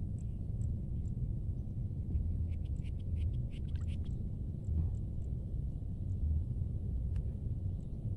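Low rumble of wind buffeting the microphone outdoors, with a cluster of faint high clicks about three seconds in.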